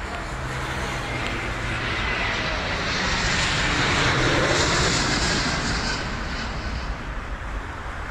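Jet airliner flying past, its engine noise swelling to a peak about four seconds in and then fading.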